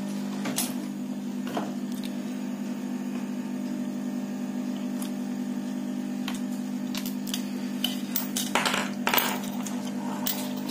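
Small plastic clicks and light clatter as a Realme Bluetooth neckband earphone's glued housing is worked off by hand to expose the battery, with a louder run of clicks about nine seconds in. A steady low hum runs underneath.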